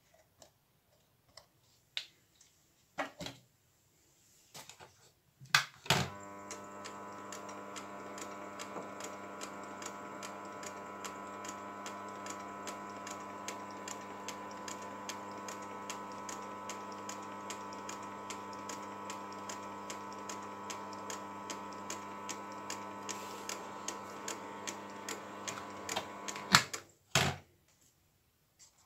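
Metal lathe switched on with a loud click about six seconds in, then running with a steady hum and regular ticking while a die cuts an M3 thread, and switched off with a couple of clunks near the end. Scattered light clicks come before it starts.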